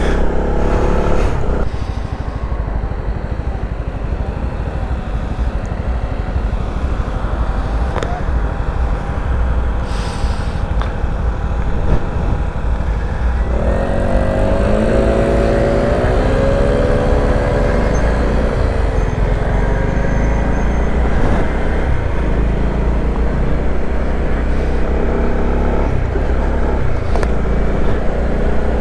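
Honda CB125R's single-cylinder engine running on the move under a constant, heavy wind rumble on the microphone. About fourteen seconds in, the engine note rises and shifts for several seconds as the bike accelerates.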